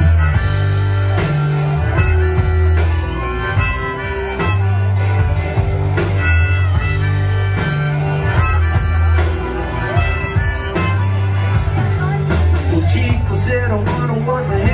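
Live band playing an instrumental break between sung verses: electric guitars, bass and drums, with a lead line that bends in pitch over a steady beat.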